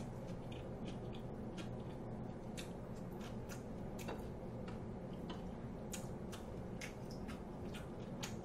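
A person chewing food close to a microphone: soft, irregular wet mouth clicks and smacks over a steady low hum.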